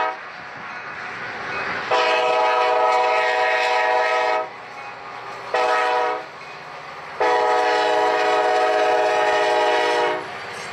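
Air horn on a pair of ex-Burlington Northern EMD SD40-2 diesel locomotives sounding the grade-crossing signal: a blast that cuts off right at the start, then a long, a short and a long blast, each a chord of several steady notes. Between the blasts the passing train rumbles underneath.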